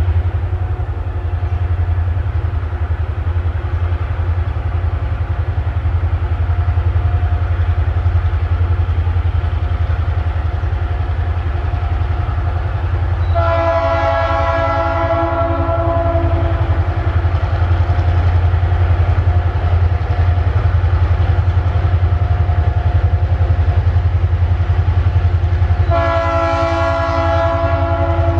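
Horn of an approaching Tasrail diesel locomotive sounded twice, each blast a chord lasting about two to three seconds, roughly twelve seconds apart, the second still sounding at the end. Underneath is a steady low rumble.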